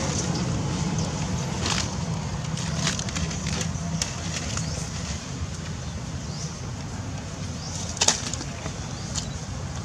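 Steady outdoor background noise with a low hum, broken by scattered sharp clicks and rustles; the loudest snap comes about eight seconds in.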